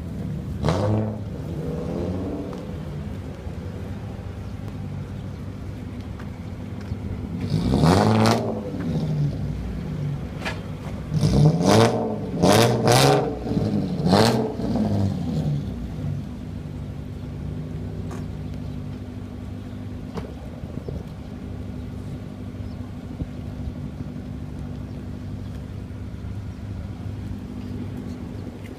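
Toyota Mark II GX71's straight-six running through a loud aftermarket muffler. It idles, is blipped sharply once near the start and once about a third of the way in, then revved in a quick run of four or five blips in the middle, and settles back to a steady idle.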